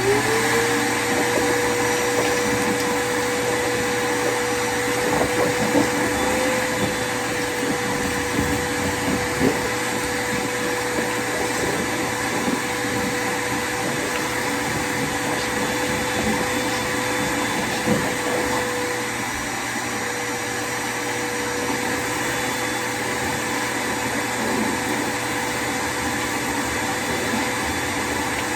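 Shop vacuum switching on and quickly spinning up to a steady whine, then running continuously while vacuuming up dust, with a couple of brief knocks from the nozzle.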